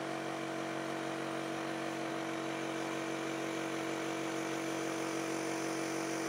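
A machine or motor running with a steady, unchanging hum.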